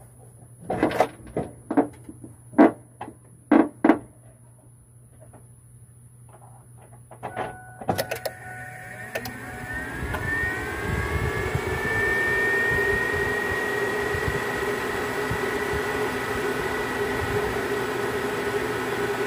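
Electric radiator cooling fans on a 1997 Ford F-150 switching on with the ignition, starting with a click about eight seconds in, spinning up with a rising whine over a few seconds, then running steadily with a rush of air. A handful of short, loud sounds come in the first four seconds.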